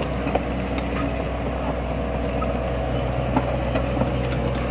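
Mini excavator running with a steady mechanical hum as it travels, with a few light ticks.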